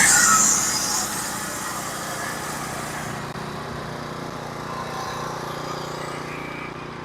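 Norwood HD36v2 portable sawmill's gas engine running steadily, gradually getting quieter. In about the first second a loud high-pitched hissing rush sits over it.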